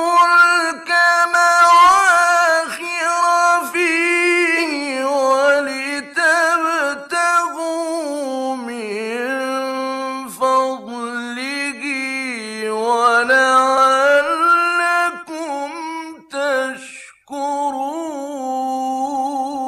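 A male Qur'an reciter chanting in the slow, melodic mujawwad style from a 1960s radio recording, holding long ornamented notes that waver and glide up and down in pitch. The voice breaks off briefly for breath near the end, then resumes.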